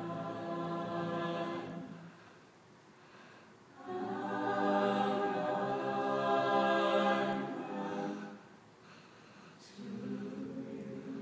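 Mixed-voice a cappella group singing slow, held chords with no instruments. A chord dies away about two seconds in, a louder, fuller chord swells from about four to eight seconds, and a softer, lower chord begins near the end.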